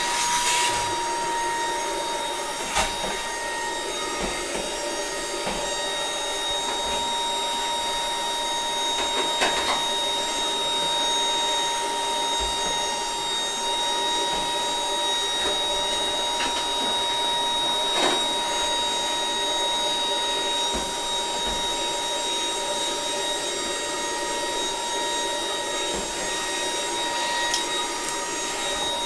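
Vacuum cleaner running steadily with a high whine, its hose nozzle sucking lint out of a clothes dryer's lint-trap slot while a bristle brush on a rod is twisted inside, scraping. A few brief clicks as debris is pulled into the nozzle.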